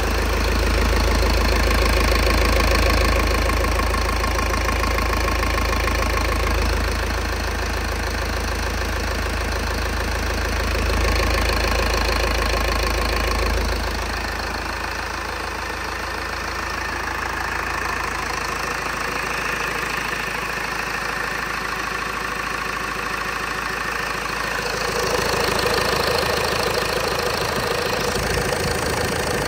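Mercedes-Benz MBE 900 4.3-litre four-cylinder diesel engine idling steadily, dropping a little in level about halfway through and coming back up near the end.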